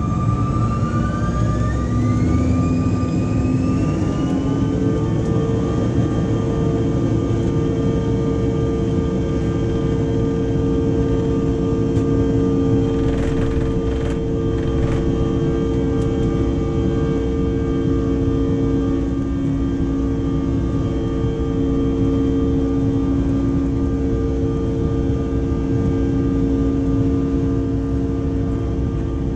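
CRJ-900's rear-mounted General Electric CF34 turbofans heard from the cabin, spooling up to takeoff thrust with a rising whine over the first few seconds, then holding a steady high whine over a heavy rumble on the takeoff roll. A few brief rattles come partway through.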